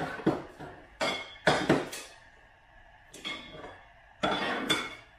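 Metal clinking and clattering from the thin steel legs and frame of a flat-pack side table being handled and fitted together. It comes in four short clusters of knocks with a brief ring after them.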